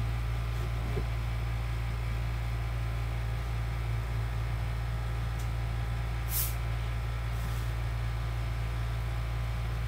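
Steady low hum with a brief high hiss about six seconds in.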